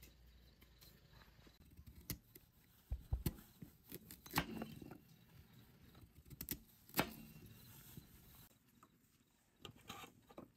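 Knife cutting carrots on a wooden chopping board: a handful of sharp knocks of the blade on the board, spaced irregularly with quiet between, and a few fainter taps near the end.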